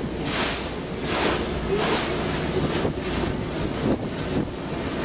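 Water rushing and splashing along the hull of a moving motorboat, with wind buffeting the microphone. The hiss comes in repeated surges over a steady low rumble.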